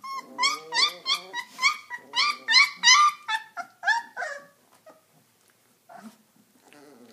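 Three-week-old Redbone Coonhound puppies crying: a quick run of about a dozen high, rising-then-falling cries, roughly three a second, over the first four seconds or so, then tapering off to a few faint noises.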